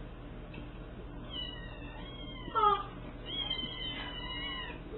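Kitten meowing twice: a high cry that slides down in pitch and peaks loudly partway through, then a longer, high, nearly level cry.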